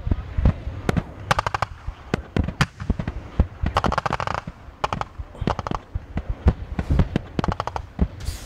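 Bursts of rapid automatic gunfire from military guns: sharp cracks in quick strings of several shots, one string every second or so, over a low rumble.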